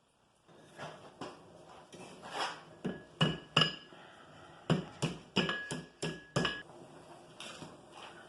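A blacksmith's hand hammer striking iron on an anvil: about a dozen unevenly spaced blows, several leaving a short metallic ring, followed by a few lighter taps near the end.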